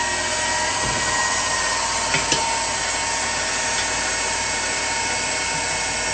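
Electric stand mixer running at speed, its flat beater churning a liquid batter in a steel bowl; a steady motor whine, with two short knocks about two seconds in.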